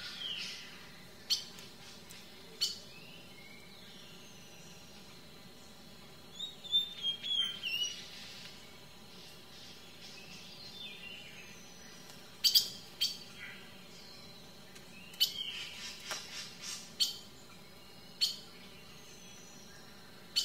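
Small birds chirping and calling, with short sharp high notes and brief gliding whistles scattered throughout and busier flurries about a third of the way in and again past the middle.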